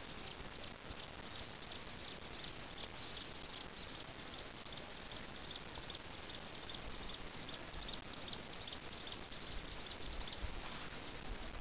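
Insects chirring steadily in a high, fine buzz over a low rumble.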